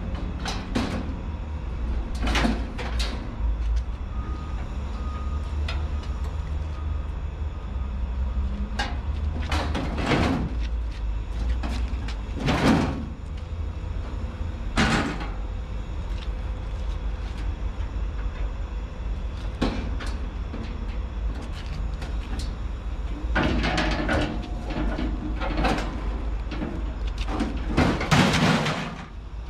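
Steady low engine rumble, broken by about a dozen sudden clanks and bangs of scrap steel, several of them heavy, with a cluster near the end.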